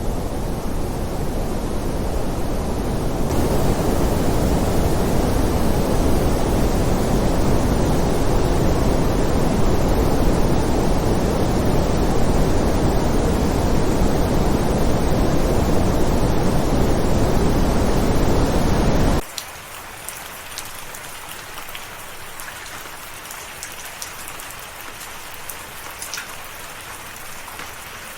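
Rain falling steadily and heavily. About two-thirds of the way through it cuts off suddenly to quieter, lighter rain with separate drops ticking.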